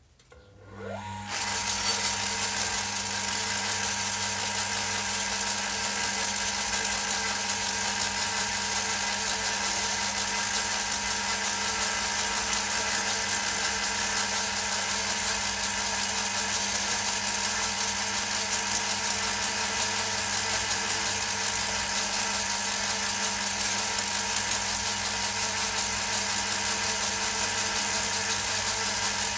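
An old belt-driven metal lathe switched on: its motor spins up with a short rising whine in the first second or so, then runs steadily with a hum, a few steady tones and a high whir.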